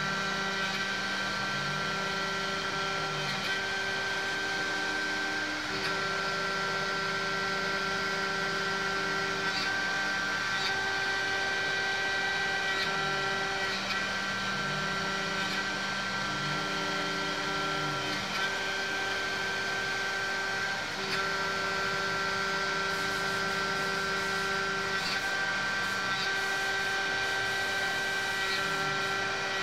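CNC vertical milling machine cutting into a metal block with a small end mill: a steady spindle whine and hum, with tones that change and briefly dip in pitch every few seconds as the machine moves through its cut.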